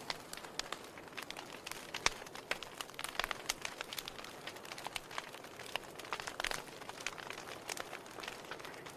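Wood fire in a fireplace crackling: irregular sharp pops and snaps over a soft hiss, with a louder pop about two seconds in.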